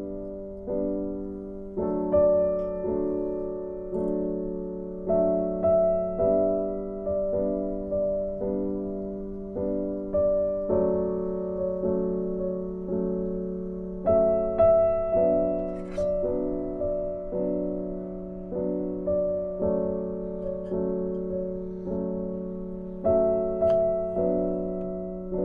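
Background piano music: gentle, slow chords and single notes, each struck and left to fade, moving to a new chord every second or two over a steady low held note.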